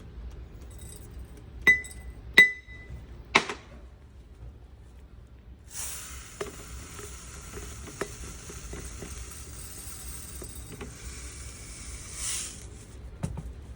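Glass jar clinking three times, each strike with a short ring, then a steady hiss lasting about seven seconds, dotted with small taps.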